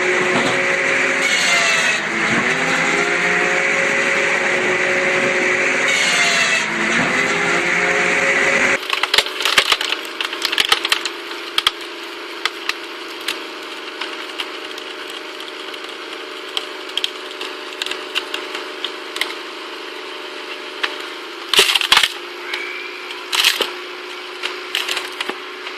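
An engine runs steadily under load, its pitch dipping twice. About nine seconds in it gives way to a log being split in a hydraulic log splitter: repeated sharp cracks and splintering of the wood, with a faint steady hum beneath and two loud cracks near the end.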